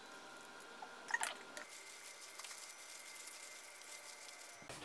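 Faint wet squishing of kimchi dumpling filling in a stainless steel pot, as red sauce is squeezed onto it and a plastic-gloved hand mixes it, with one short squelch about a second in.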